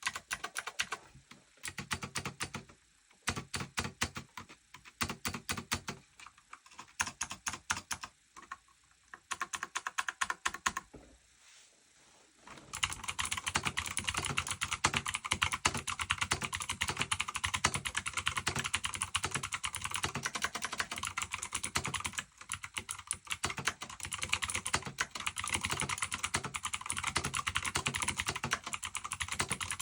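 Razer BlackWidow V3 Mini mechanical gaming keyboard being typed on, the keys clacking. For about the first twelve seconds it comes in short bursts with pauses, then it turns into fast, continuous, louder typing.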